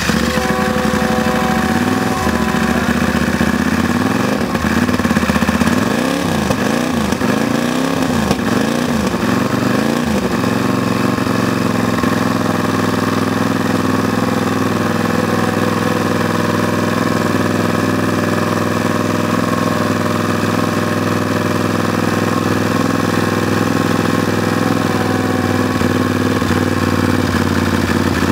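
Drag-racing lawnmower engine running while it warms up. It is revved up and down several times over the first ten seconds or so, then settles into a steady idle.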